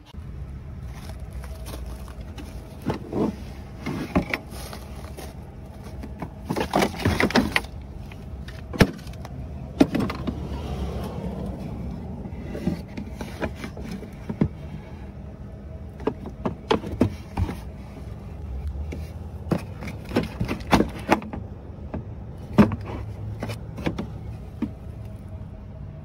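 Handling noise from a hard plastic inspection-camera case and its coiled cable: scattered clicks, knocks and rattles as it is opened and the cable lifted out, over a steady low rumble.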